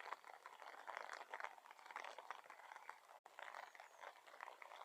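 Faint light rain pattering, a dense, irregular crackle of small drops.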